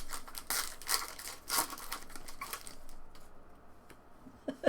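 Foil trading-card pack wrappers being torn open and crinkled: a run of short, irregular crackling rips, dying down after about three seconds.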